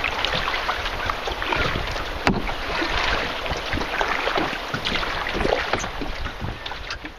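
River water rushing and splashing around a canoe, a dense, steady crackle of small splashes, with a sharp knock against the boat about two seconds in.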